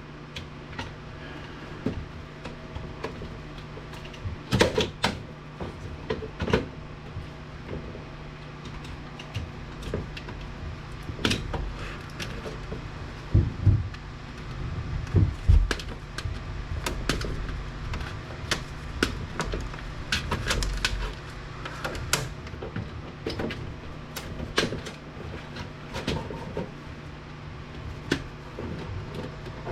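Irregular clicks, knocks and clatter of hand tools and plastic and metal parts as an APC battery backup unit is taken apart, over a steady low hum.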